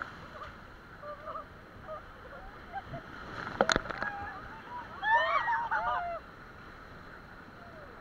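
Rushing whitewater and spray splashing over a raft's inflatable tube, with one sharp splash or knock a little past three and a half seconds in. Around five to six seconds in, several voices call out briefly.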